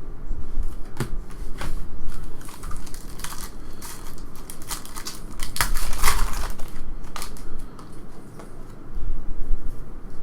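Crinkling and tearing of a foil trading-card pack wrapper being opened and handled, in a run of short, irregular rustles.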